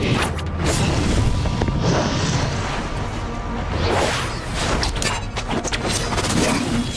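Dramatic film-score music layered with fight sound effects: repeated whooshes and booming impacts.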